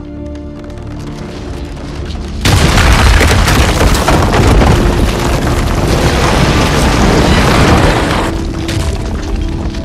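Film soundtrack: music with held tones, then about two and a half seconds in a sudden loud blast. It runs on as a long, heavy rumble of breaking stone and falling debris as the top of a stone obelisk is blown apart.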